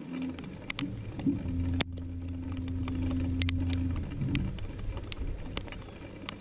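Electric trolling motor on a bass boat humming steadily for about four seconds, then easing off, with scattered light clicks and ticks.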